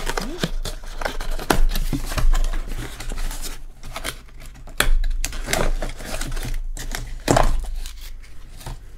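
A small cardboard box of light bulbs being handled and opened by hand: flaps pulled open, with irregular rustling, scraping and sharp clicks of the paperboard and a few louder knocks.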